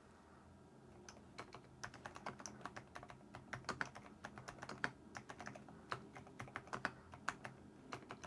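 Typing on a Keychron V6 Max full-size mechanical keyboard: a run of irregular key clicks, several a second, starting about a second in, faint and not very clacky.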